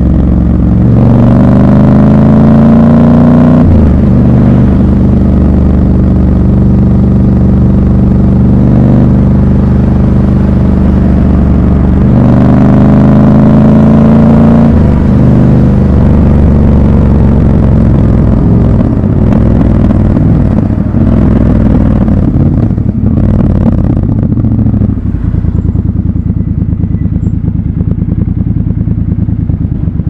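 Triumph Scrambler 1200 XC's 1200 cc parallel-twin engine under way, rising in pitch as it accelerates, dropping at a gear change about four seconds in, then running steadily. It climbs again around twelve seconds in and runs lower and a little quieter over the last few seconds as the throttle eases.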